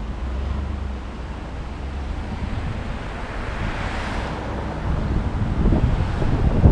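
Wind buffeting a hood-mounted action camera's microphone while a car drives along a street, over the low rumble of engine and tyres. The rush swells about halfway through and the low rumble grows louder and rougher near the end.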